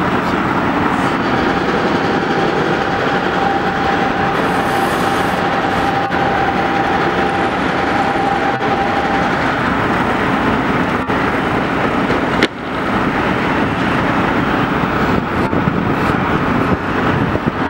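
Steady diesel engine and hydraulic noise from excavators working, led by a Komatsu PC200 long-reach excavator. A thin steady whine runs from about a second in to about nine seconds in, and a single sharp click comes about twelve and a half seconds in.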